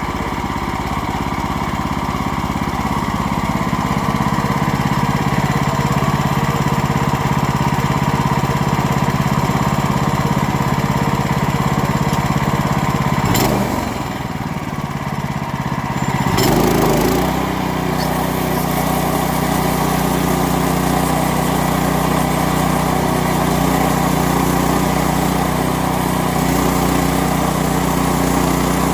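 Gasoline engine of a Woodland Mills portable bandsaw sawmill running steadily as the band blade saws through a hard white oak log. The engine note dips briefly about halfway through, then settles at a slightly different pitch.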